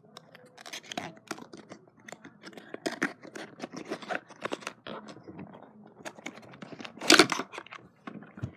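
A 2x2 puzzle cube's box and packaging being handled and opened: a run of small clicks, scratches and rustles, with a louder rustle about seven seconds in.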